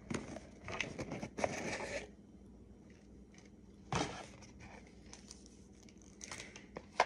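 Packaging being torn and crinkled for about two seconds as a small boxed item is opened, then a few light scrapes and taps of the cardboard box being handled.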